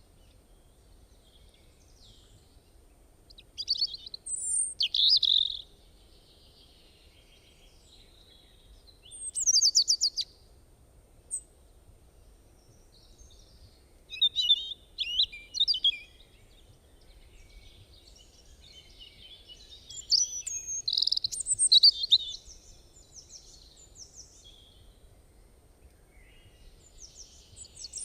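A bird singing in short, high, warbling phrases of a second or two, with pauses of several seconds between them.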